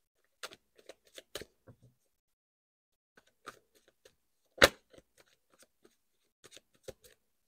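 Tarot cards being shuffled by hand: soft, irregular clicks and flicks of cards against each other, with one sharper snap about halfway through.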